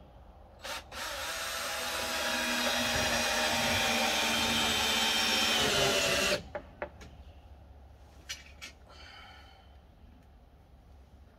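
Cordless drill driving a screw into a wooden frame: a short blip, then one steady whining run of about five seconds whose pitch sags slightly near the end before it stops, followed by a few light clicks.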